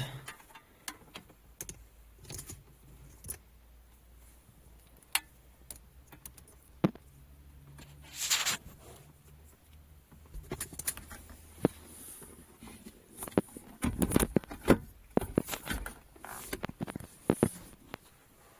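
Handling noises: scattered clicks, taps and rustles of objects being moved and fiddled with. There is a longer rustle about eight seconds in and a busy run of clicks around fourteen seconds, over a faint low hum.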